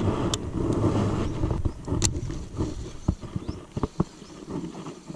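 Low rumble of wind on the microphone over water noise around a fishing kayak, with a few sharp clicks and knocks of a paddle and a spinning rod and reel being handled. The rumble drops away after about three seconds, leaving a quieter stretch with scattered knocks.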